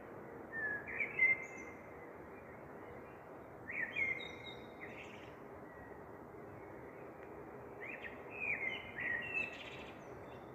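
Bird chirping in three short bursts of quick chirps a few seconds apart, over a steady background hiss.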